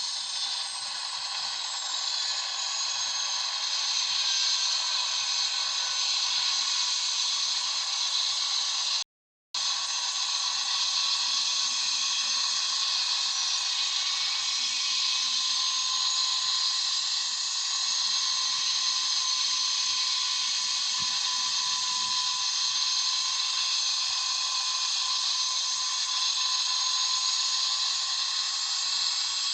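Helicopter turbine engine sound: a steady high whine over hiss, with no rotor beat. It cuts out for about half a second roughly a third of the way in, then carries on unchanged.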